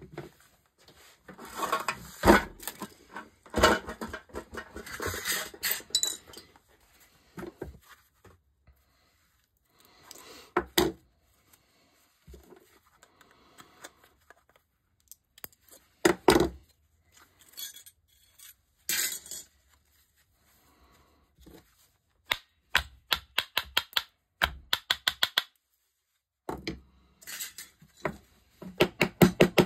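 Thin sterling silver candlestick parts being pried and crimped with pliers: irregular scraping, crinkling and clinking of metal on metal. Near the end comes a fast run of light hammer taps, about five a second, on the silver piece.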